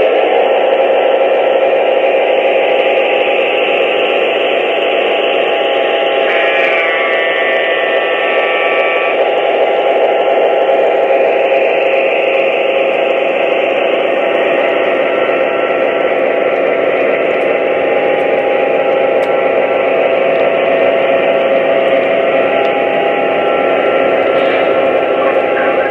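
Atlas O 3-rail EMD F7 diesel locomotives' onboard sound system playing the diesel engine running under way, a steady drone through the model's small speaker, with the train rolling on the track. About six seconds in, a chord of higher tones sounds for about two and a half seconds, the locomotive horn.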